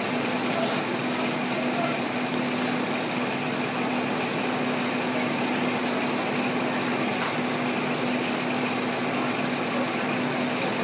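Steady drone of fire engines' diesel engines running at the scene, a constant low hum over an even wash of noise, with a few faint ticks.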